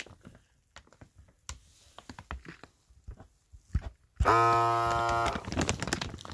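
Faint clicks of the plastic bag being handled, then about four seconds in a vacuum sealer's motor starts with a sudden steady hum that lasts about a second, followed by crackly handling noise of the bag.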